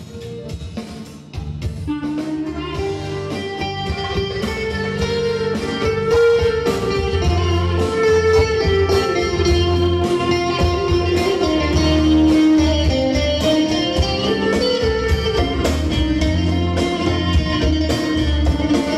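Band playing an instrumental passage: a plucked electric bağlama (saz) carries the melody over keyboard and bass with conga and hand-drum percussion, swelling in over the first couple of seconds.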